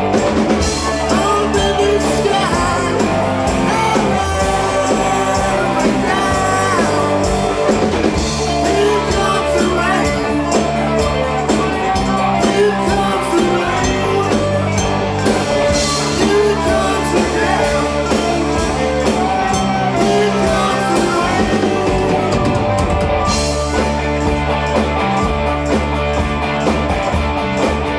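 Rock band playing a song with a singer: guitar, bass and drum kit, loud and steady.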